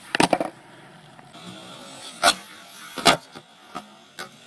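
Skateboard clacking on asphalt: a quick cluster of pops and landing slaps right at the start, then two sharp clacks under a second apart in the middle, and a few lighter knocks near the end.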